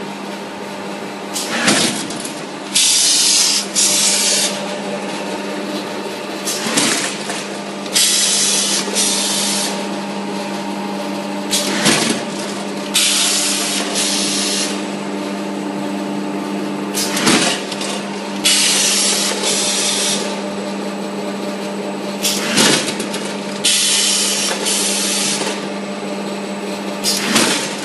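Automatic clay-cutting machine on a pug mill running through its cutting cycle: a steady motor hum, with a sharp click about every five seconds, each followed about a second later by a short hiss.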